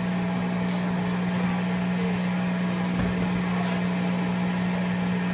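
Low, steady electrical hum from the stage's guitar and bass amplifiers and PA, with a faint knock about three seconds in.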